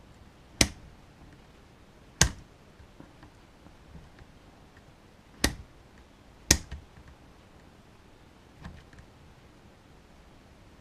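Four sharp clicks of small hard parts or tools knocking together, spread over several seconds with longer gaps between, and a fainter click near the end.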